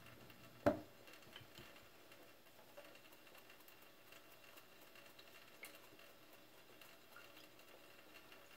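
Faint, soft scratching and ticking of a toothbrush scrubbing dirt from an oyster mushroom's cap and gills over a stainless steel sink, with a thin trickle of tap water. A single sharp knock comes just under a second in.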